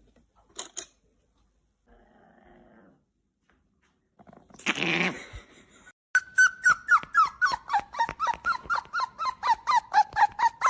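A dog's rapid, rhythmic squeaking, about five squeaks a second, starting about six seconds in; a short noisy burst comes just before it.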